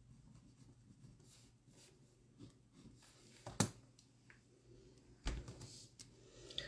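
Quiet room with a few small handling knocks and clicks from hands near the phone: a sharp click about three and a half seconds in, the loudest, and a duller thump a little after five seconds.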